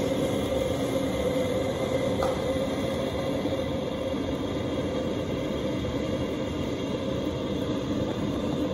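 Gas burner running steadily under a wok of braising liquid bubbling at a low simmer.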